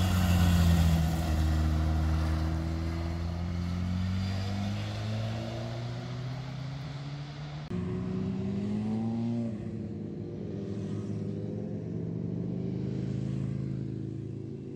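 A motorcycle engine passes close at speed, loudest at the start, then settles to a steadier, lower note. About eight seconds in, the sound cuts abruptly to another engine that rises in pitch for about two seconds, drops suddenly, then runs on steadily.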